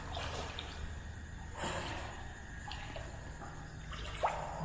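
Steps sloshing through floodwater and deep mud, with a few short swishing surges and breathing close to the microphone.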